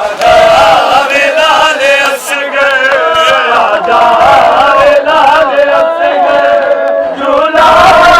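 A group of men chanting a nauha, a Muharram lament, together in a wavering melodic line without pause.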